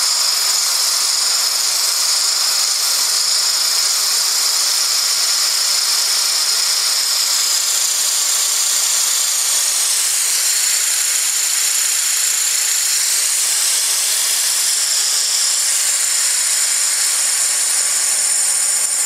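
Compressed air hissing steadily through a small nozzle and venturi line. It is a high hiss whose tone shifts for a few seconds midway through.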